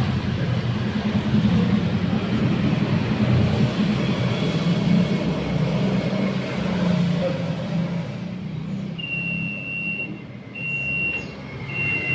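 Motor-driven carpet spinner drum running with a steady low hum. About three-quarters of the way in, a high electronic beep begins to sound in repeated tones about a second long, three in a row.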